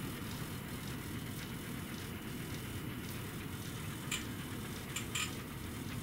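Steady low indoor room hum with a few short, faint clicks about four and five seconds in.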